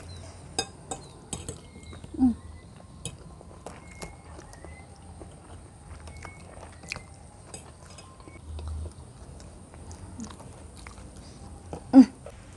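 Cutlery clinking and scraping on ceramic plates as people eat, with scattered light clicks throughout. A short low vocal sound from a diner comes about 2 s in and again near the end.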